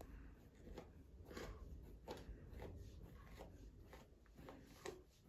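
Faint, scratchy strokes of a brush through a dog's fur, coming at an uneven pace of about one every half second to a second.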